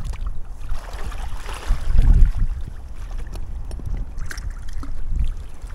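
Lake water sloshing around waders and an inflatable boat as a person wades and handles the boat, with wind rumbling on the microphone and a few light knocks.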